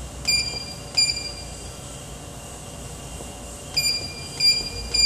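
Control-panel keypad of a vacuum packaging machine beeping as its buttons are pressed: two short high beeps near the start, then three more close together near the end. Each beep confirms a key press while the machine's parameters are being set.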